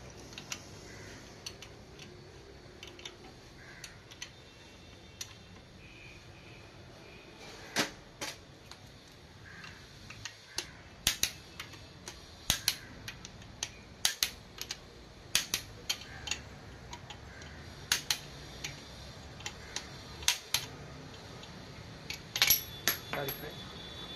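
Sharp metallic clicks and clinks, irregularly spaced, from a torque wrench and socket tightening the connecting-rod cap bolts of a Fiat 1.3 Multijet diesel engine.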